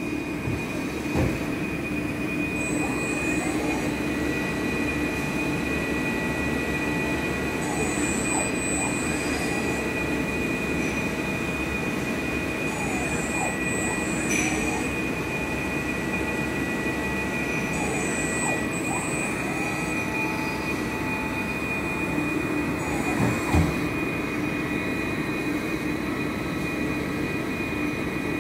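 Spinner TC 400-42 CNC lathe running: a steady machine hum with a thin high whine over it. A whine rises and falls again about every five seconds, and there are a few sharp clunks, two of them close together near the end.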